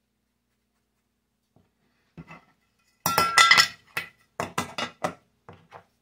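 Metal lid of a paste wax tin clinking and clattering as it is handled and put back on the tin: a loud ringing clatter about three seconds in, then several short clicks and taps as it is pressed shut.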